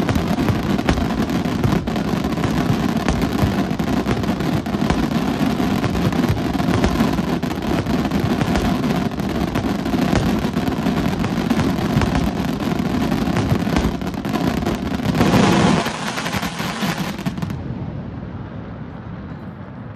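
Professional aerial fireworks in a dense, continuous barrage of shell bursts and crackling stars, peaking in a louder flurry about fifteen seconds in, then dying away. This is the show's closing finale.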